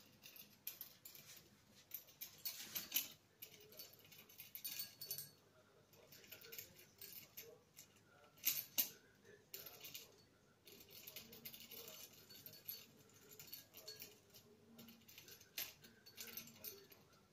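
A yellow budgerigar pecking and tugging at a red mesh foraging bag stuffed with paper and hung with a small bell: irregular crinkling and rattling with light bell jingles, loudest about three seconds in and again near nine seconds.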